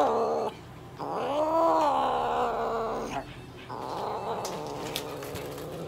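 Black-and-white Japanese domestic cat yowling in protest while restrained: the tail of one yowl at the start, a long drawn-out call about a second in that rises and then falls in pitch, and quieter, rougher yowling near the end.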